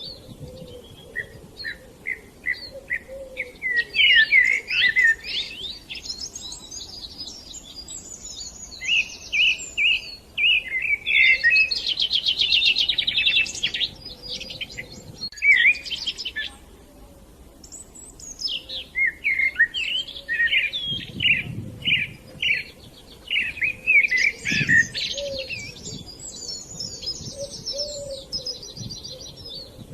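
Several birds chirping and singing in overlapping bouts of quick high chirps and fast trills, with a brief lull a little past halfway.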